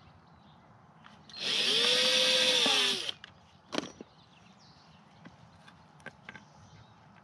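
Cordless drill running for about a second and a half as it drills into a wooden compost-bin board, its motor pitch rising and then sagging under the load. A single sharp click follows shortly after it stops.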